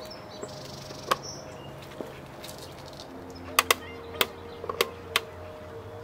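Sharp plastic clicks and taps as a gloss black M-style mirror cap is handled and pressed onto a BMW E90's side-mirror housing. About seven single clicks are spread out, with a quick loud pair past the middle, over a steady low hum.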